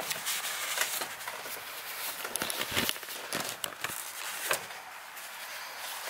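Irregular light clicks, scrapes and rustling of hand work on the engine's cam seal bores: a gloved hand and shop towel wiping and handling parts against the metal of the head, with a few sharper knocks in the middle.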